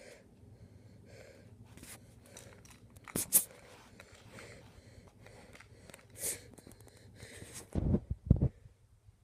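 A cat sniffing at and pawing a plastic toy on carpet, close to the microphone. Faint snuffling is broken by a few sharp clicks, and near the end by a pair of dull thumps, the loudest sounds.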